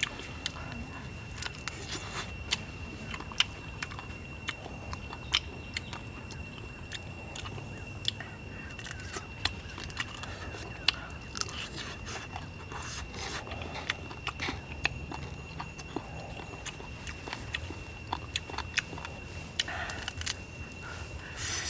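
Close-up eating: a person biting and chewing a grilled chicken leg, with frequent irregular sharp clicks and crunches from the mouth. A steady high-pitched tone runs behind it throughout.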